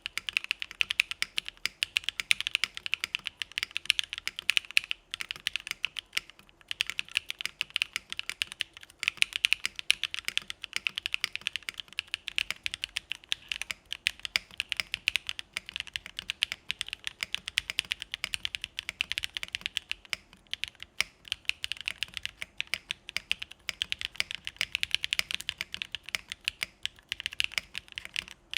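Fast continuous typing on a Geonworks Frog mechanical keyboard with lubed Gateron Pure Berry switches in an aluminium plate and CRP Desko keycaps: a dense stream of crisp, clacky keystrokes, broken by a few short pauses.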